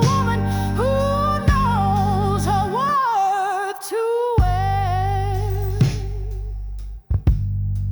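Slow blues ballad music: a wavering lead melody line with vibrato over sustained low chords, with a hit about every second and a half. The music cuts out briefly near the end.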